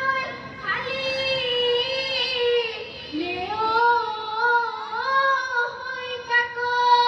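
Girls' voices singing a Bihu song, holding long high notes that slide from one pitch to the next, with no drumming.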